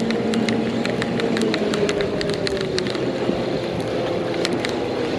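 A motorboat engine running steadily in the inlet, its pitch drifting down slightly about halfway through, with rapid irregular clicking over it.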